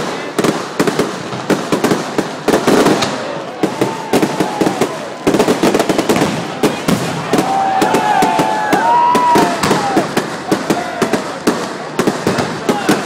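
Fireworks display: a dense, continuous run of sharp cracks and bangs, several a second, without a break.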